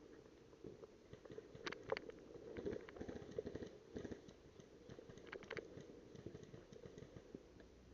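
Faint scattered clicks and crunching rustles, several sharp ticks in pairs, over a low background rustle.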